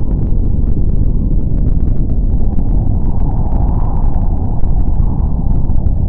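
Explosion sound effect: a loud, steady wash of deep noise, the drawn-out aftermath of a huge blast.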